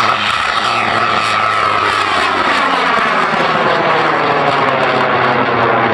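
High-power amateur rocket motor burning as the rocket climbs away. It makes a loud, steady rushing noise that starts suddenly, and its pitch bands slide slowly downward as it rises.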